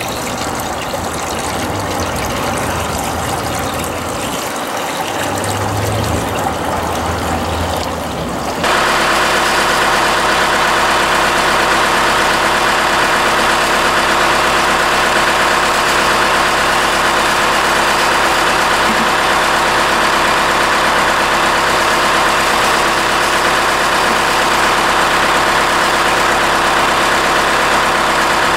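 Water poured from a gallon jug into a plastic bucket, then, after a sudden change about eight and a half seconds in, a Cummins 4BT four-cylinder turbo diesel idling steadily.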